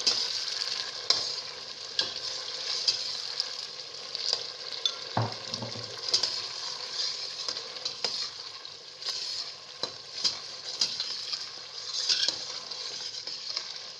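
Benachin sauce frying in oil in a pot, a steady sizzle, with frequent sharp clicks of a utensil against the pot and one duller thump about five seconds in.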